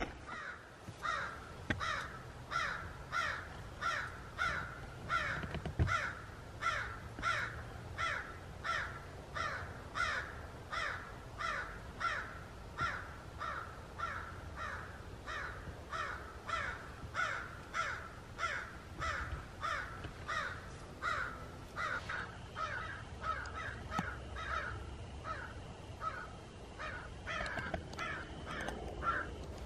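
An animal's harsh, crow-like call, repeated steadily at about two calls a second without a break.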